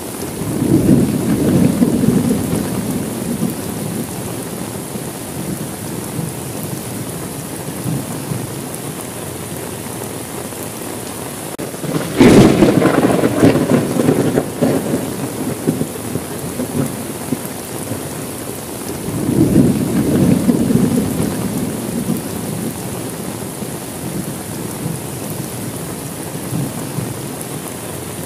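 Steady heavy rain with rolling thunder. Three peals: one right at the start, a sharp crack about twelve seconds in that rolls into a long rumble, and another low rumble around twenty seconds in.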